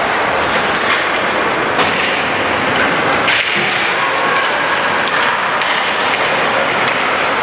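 Ice hockey play in a rink: a steady din of the game with several sharp knocks and thuds from sticks, puck and players against the boards and glass.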